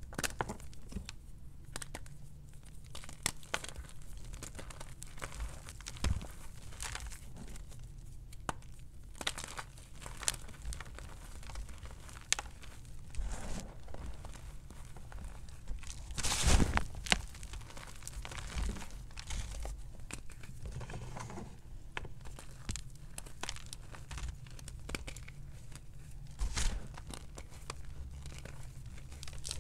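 Crumbled gym chalk and cornstarch being crushed and squeezed by hand: irregular small crunches and crackles throughout, with a louder burst of crunching a little past halfway and another near the end.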